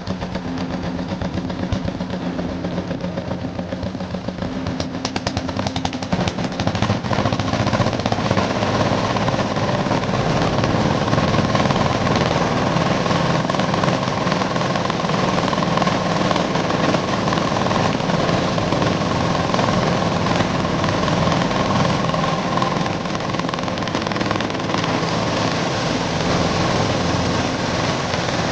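Diesel-engine-driven corn sheller running, with a steady engine hum under a dense rattle of cobs and kernels being threshed. It grows louder about seven seconds in.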